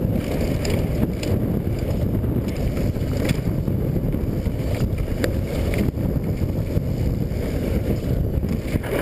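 Wind buffeting an action camera's microphone while a mountain bike rolls fast down a dirt trail: a steady low rumble with scattered clicks and rattles from the bike and the tyres on the ground.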